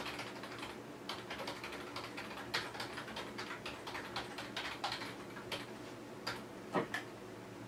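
Typing on a computer keyboard: a quick, irregular run of key clicks, entering a line of code, with a few louder keystrokes near the end.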